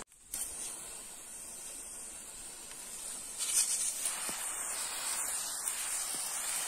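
Pressure sprayer nozzle hissing as it jets a mist of insecticide and fungicide up into a fruit tree's leaves, the hiss growing louder and sharper for a moment about three and a half seconds in.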